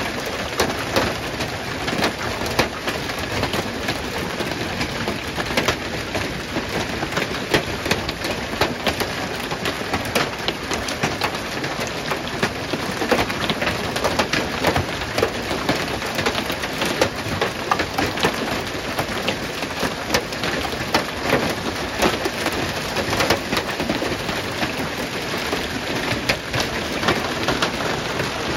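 Large hailstones pelting parked cars and the gravel ground in a heavy hailstorm: a dense, unbroken clatter of countless small impacts, with sharper individual hits standing out throughout.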